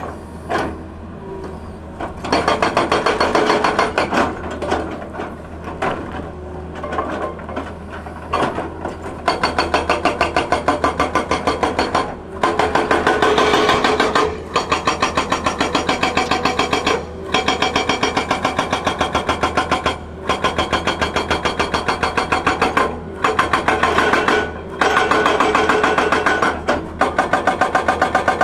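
Hydraulic rock breaker on a Tata Hitachi excavator hammering rock, starting about two seconds in and going in runs of rapid blows a few seconds long with short pauses between. The excavator's engine runs steadily underneath.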